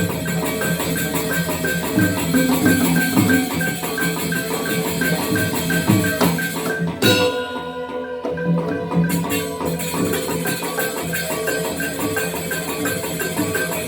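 Balinese gamelan playing dance accompaniment: bronze metallophones and gongs in dense interlocking figures over a steady beat. About halfway the ensemble stops abruptly and the bronzes ring on for about two seconds, then the playing resumes.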